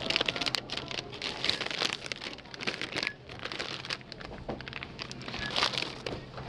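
Plastic snack bags crinkling and packages rustling as they are lifted out of a cart and set down, in many quick irregular crackles, over a faint steady low hum.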